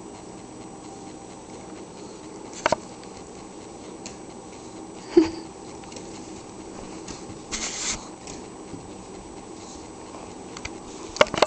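Pomeranian puppies scuffling in play: a few sharp clicks and taps of paws and claws, and a short rustling scuffle about two-thirds of the way through.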